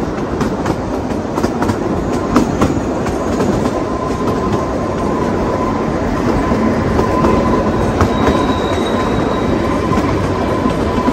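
Kalka–Shimla narrow-gauge toy train running, heard from on board: a steady rumble of the coaches with scattered clicks and clatter from the wheels. A thin, steady, high whine joins about four seconds in and fades near the end.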